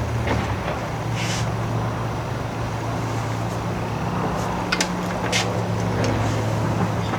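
A steady low mechanical hum, like a fan or other running machine, with a few short clicks and knocks from parts and tools being handled.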